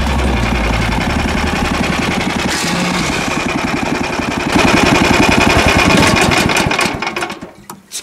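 Snowmobile engine running with a rapid, even pulse as the machine travels over the ice, louder from about halfway through, then dying away shortly before the end as it stops.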